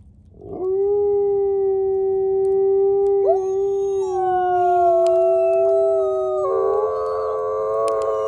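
Gray wolves howling in chorus: one long, steady howl begins about half a second in, a second wolf joins with a rising howl a few seconds later, and more voices pile in near the end into a layered group howl.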